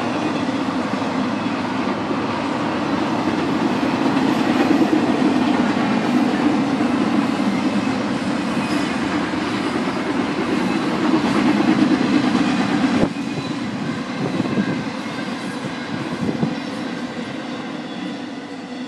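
Double-stack intermodal freight cars of a Norfolk Southern train rolling past, their steel wheels running steadily on the rails. The noise drops abruptly about two-thirds of the way through, then fades.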